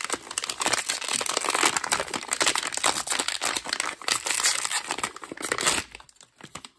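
Blind-box toy packaging crinkling and tearing as it is pulled open by hand: a dense run of crackly rustling that dies down about six seconds in to a few light rustles.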